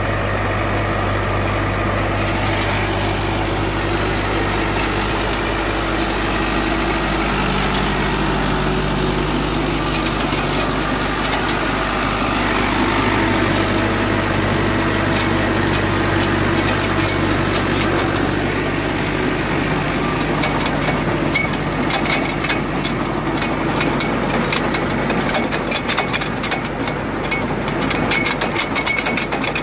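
Tractor engine running steadily, with a rapid uneven clicking over it in the last ten seconds or so.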